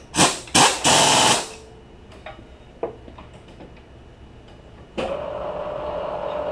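Three short, loud rushing bursts at the top of a vertical knee mill in the first second and a half, then a couple of small tool clicks. About five seconds in, the mill's spindle starts and runs with a steady hum, ready to ream a worn LS3 lifter bore.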